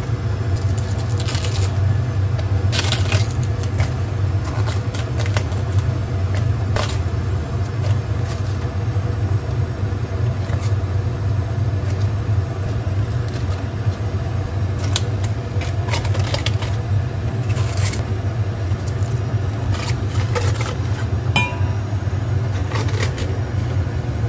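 Cabbage leaves dropped and pressed into a stainless steel steamer basket: scattered light rustles, scrapes and small metallic clinks of the basket, over a steady low hum.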